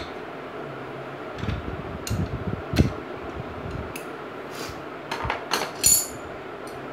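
Metal hand tools, a wrench and a socket bar, clinking and knocking a handful of times, with a sharp knock about three seconds in and a quick run of clinks near the end, over the steady hum of a fan.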